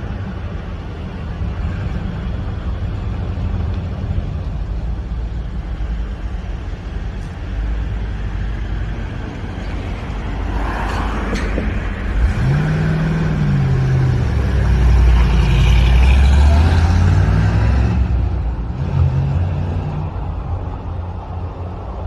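1956 Ford F100 pickup's engine running with a steady low rumble, rising in pitch as the truck accelerates about twelve seconds in, loudest a few seconds later as it passes close, then fading as it drives away.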